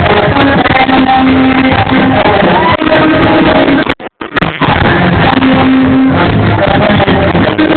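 Loud rock-style show music with singing and guitar, playing continuously and dropping out for a split second about halfway through.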